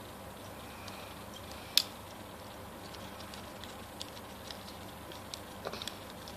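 Plastic clicks and snaps from the joints and parts of a small Transformers Unicron Megatron figure being turned by hand during transformation: one sharp click near two seconds in, a few lighter ones later and a quick run of clicks near the end, over a steady low hiss.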